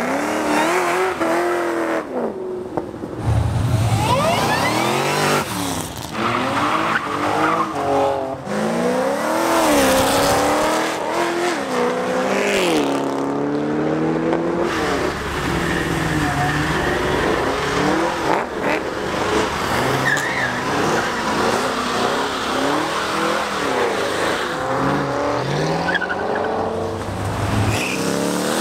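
Cadillac V-series performance cars accelerating hard one after another, their engines revving up and down through the gears as they pass. There is tyre squeal from wheelspin, and near the end a burnout.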